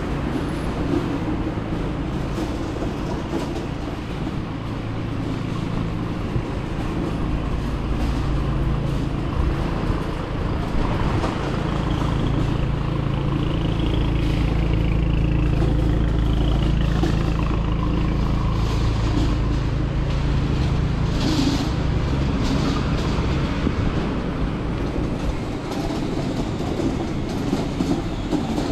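City street noise with a vehicle engine running steadily close by, a low hum that grows louder toward the middle and eases off again.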